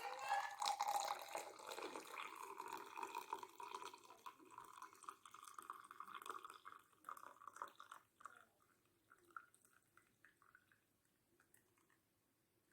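Liquid being poured in a steady stream for about eight seconds, thinning into a few drips.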